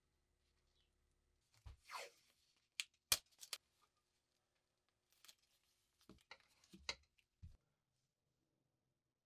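Faint handling sounds of a small metal squeeze lighter and its pins: a short scrape about two seconds in, a few sharp metallic clicks around three seconds, and scattered light taps and clicks a few seconds later.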